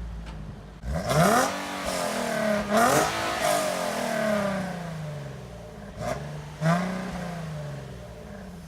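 Nissan 370Z's VQ37VHR 3.7-litre V6, freshly swapped in and breathing through test pipes, revved from idle in sharp throttle blips: two in quick succession about a second in, two more about six seconds in, the revs falling away slowly after each and settling back to idle near the end.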